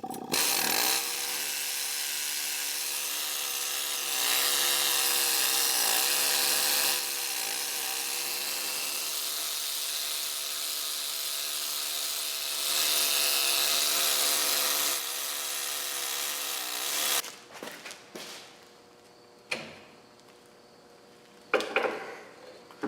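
A handheld power tool running steadily for about seventeen seconds, getting louder twice for a few seconds each, then stopping suddenly. A few light clanks and a single click follow.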